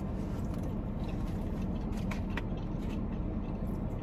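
Faint mouth and chewing clicks while eating crunchy fried fish, over a steady low hum.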